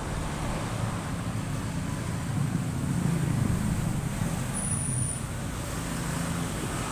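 Steady low mechanical hum, like a motor or vehicle running, with a brief faint high-pitched whistle near the middle.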